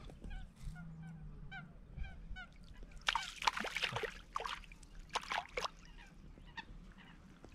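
Birds honking, loudest from about three to six seconds in, over faint chirping calls repeating at a steady pace.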